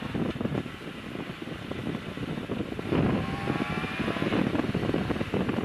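Yamaha FZR600 motorcycle's inline-four engine revving up under acceleration, with wind rushing over the helmet microphone; it gets louder about three seconds in.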